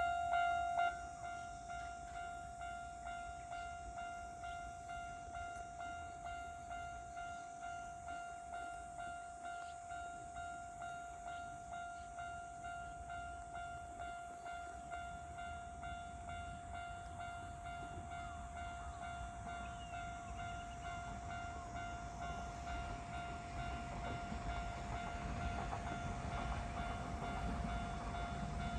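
Japanese level-crossing warning bell ringing steadily, a pitched electronic clang about one and a half times a second, dropping in loudness about a second in. Over the last several seconds an approaching Iga Railway train rumbles in, growing steadily louder.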